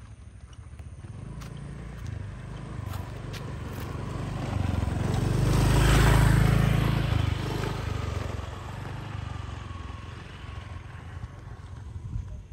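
A motorbike passing close by, growing louder to a peak about halfway through and then fading away.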